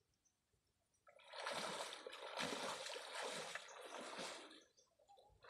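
Water splashing as people wade through a shallow pond while handling a fishing net. It starts about a second in and goes on in irregular sloshes for about three and a half seconds, then stops.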